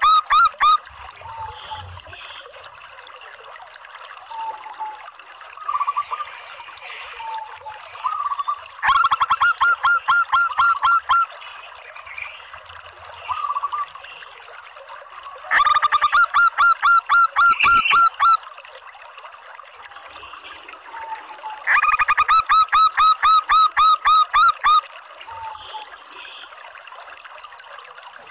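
Female zebra dove (perkutut) calling: three bursts of rapid, evenly repeated notes, each two to three seconds long, with softer single notes between and one burst ending just as it begins.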